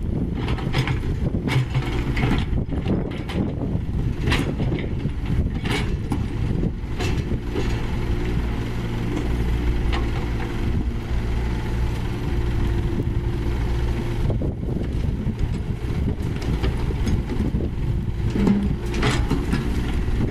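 Diesel engines of heavy construction machinery running, with intermittent sharp metallic knocks and clanks. An engine note holds steadier in the middle.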